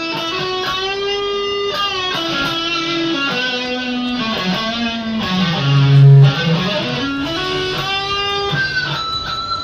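Custom-built hybrid guitar played on its neck pickup for a solo tone. It plays a slow single-note lead line with string bends, stepping down to its lowest, loudest note about six seconds in and then climbing back up.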